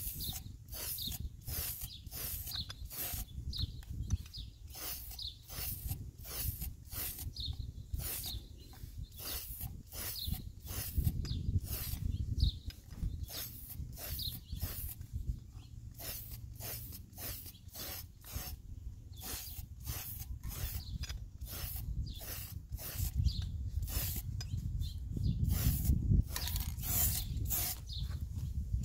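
Rust-Oleum aerosol paint can in use: a steady series of short, sharp, hissy sounds, about two a second, over a low rumble.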